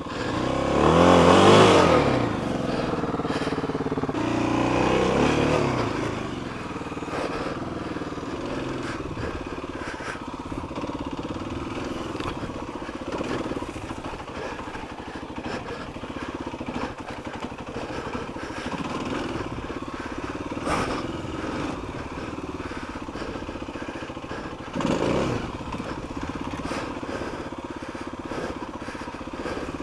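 Kawasaki KLX250's single-cylinder four-stroke engine revving up and back down twice in the first few seconds, then running at a steadier, lower pitch, as the dual-sport bike struggles over a trail obstacle it has been stuck on. Short knocks come about two-thirds of the way through and again near the end.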